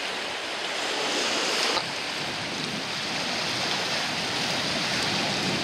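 Small sea waves washing in over shallow sand at the water's edge: a steady rush of surf.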